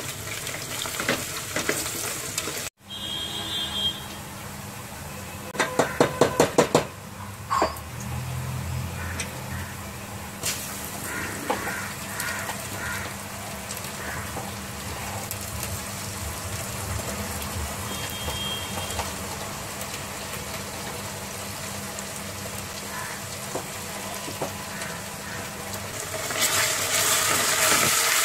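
Sliced onions frying in oil in an aluminium pressure cooker, a steady sizzle with a wooden spoon stirring and scraping the pot. About six quick sharp knocks come around six seconds in, and the sizzle grows louder near the end as the spiced onions fry.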